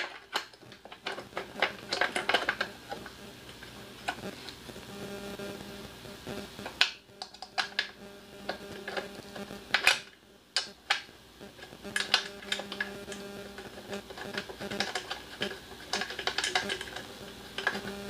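Hard plastic clicks and knocks as a portable generator's plastic engine cover and its fittings are handled and fitted back on by hand, with a faint steady hum partway through.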